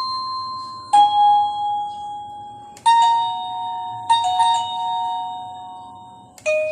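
Cacazi wireless doorbell receiver playing one of its chime melodies through its small speaker: a slow run of electronic chime notes, each starting sharply and ringing away, a new note every second or two.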